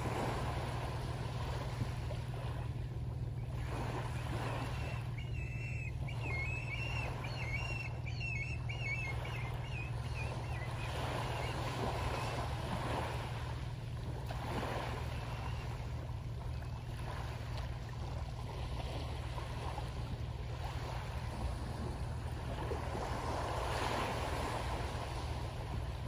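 Small waves washing onto a pebble shore, swelling every few seconds, over the steady low drone of a boat engine. A high warbling sound comes in about five seconds in and stops about five seconds later.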